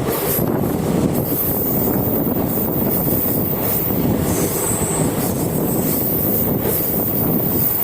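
A train running at speed: the steady rumble of wheels on the rails, with a faint high squeal about halfway through.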